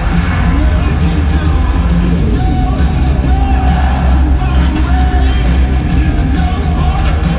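Loud music with a singing voice over heavy bass.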